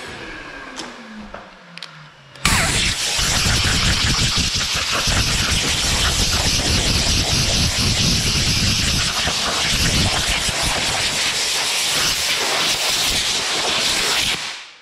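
An orbital sander spins down, its pitch falling over about two seconds. About two and a half seconds in, a loud, steady hiss of compressed air starts abruptly and cuts off near the end; this is a blow gun clearing sanding dust off the body filler.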